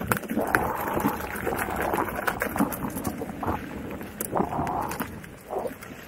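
Electric unicycle rolling along a dirt forest trail: its tyre crunching over dirt and twigs, with uneven knocks and rattles as it rides over bumps.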